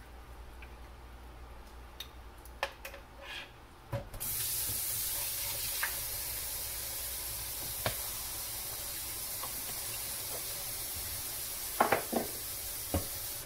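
Kitchen tap running into a bowl in a stainless steel sink: a steady hiss that starts abruptly about four seconds in and stops just before the end. A few light knocks and clatters come before it and again near the end.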